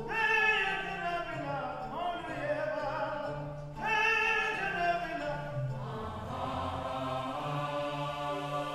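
A man singing opera phrases, one beginning at the start and another about four seconds in, over a sustained accompaniment with a steady low drone.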